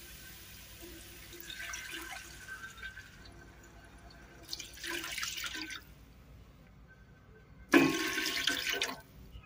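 Water poured from a glass cup into a cooking pot of fried onions and whole spices, adding the cooking water for the rice cup by cup. There are three separate pours, and the last, near the end, starts suddenly and is the loudest.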